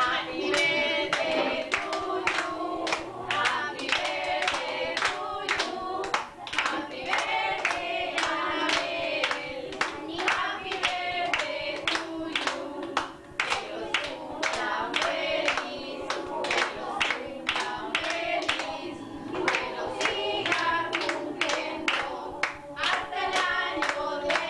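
Several people singing together, with steady hand clapping in time to the song, about two claps a second.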